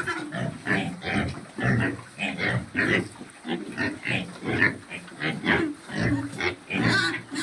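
Domestic pigs grunting over and over, short grunts coming about twice a second.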